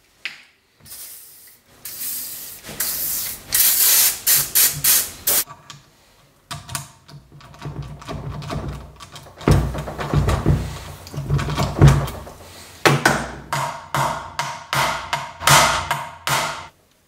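Hand tools working the bolts of a motocross rear sprocket: runs of quick metal clicks and knocks in bursts, with heavier knocks about ten seconds in.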